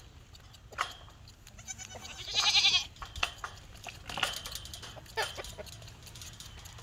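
Young goat kids bleating: one loud, high, wavering bleat about two and a half seconds in and a shorter one about four seconds in, with a few light knocks between.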